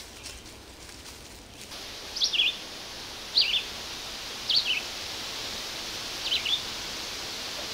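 A bird calling four times in the forest: short, sharp two-part notes, each dropping from a high note to a lower warbling one, a second or two apart, over a steady background hiss that rises about two seconds in.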